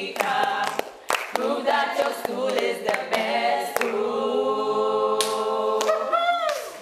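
Choir singing a cappella, with claps in the first half, settling about four seconds in on one long held chord that slides down near the end and stops.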